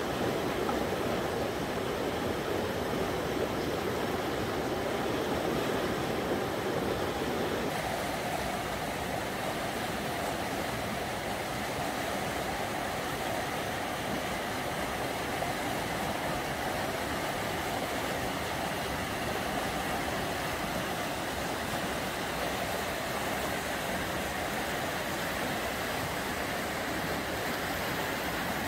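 River rapids rushing: a steady roar of white water. About eight seconds in, it abruptly becomes a little brighter and thinner.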